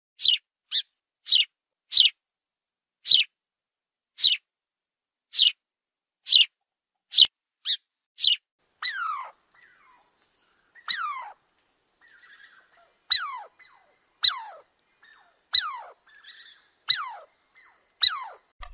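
A series of short, high, downward-sliding animal calls, roughly one a second. In the second half they become longer calls that sweep steeply down in pitch.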